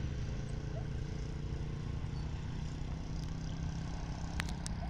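Distant phosphate freight train pulling away behind its electric locomotive: a steady low rumbling hum, with a couple of sharp clicks near the end.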